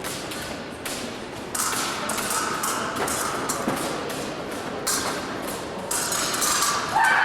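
Fencers' footwork on the piste during an épée bout: a run of uneven thumps and taps.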